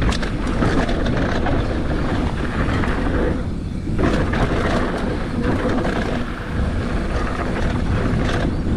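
Mountain bike riding fast down a dirt jump trail: a continuous rumble of knobby tyres on dirt and wind buffeting the action-camera microphone, with scattered rattles and knocks from the bike. There is a brief lull about three and a half seconds in, followed by a knock.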